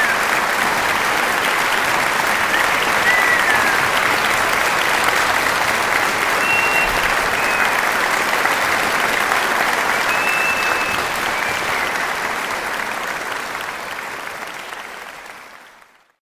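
Large crowd clapping in dense, continuous applause with a few short high whistles, fading out over the last few seconds.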